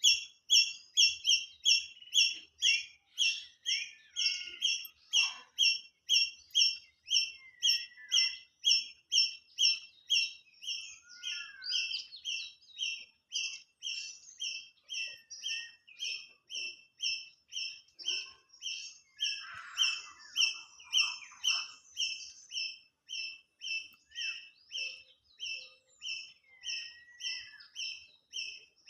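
A bird repeating one short, high note at a very even pace, a little over two notes a second, with other birds chirping and twittering more faintly in the background. The repeated note gets somewhat softer about midway through.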